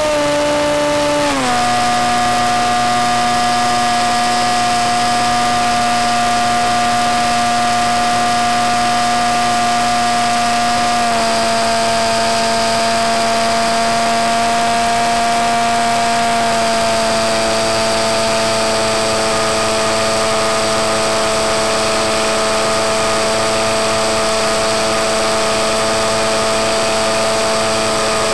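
Electric motor and propeller of a Skywalker FPV plane in flight, a steady whine that drops in pitch about a second in as the throttle is pulled back, with two smaller drops later on.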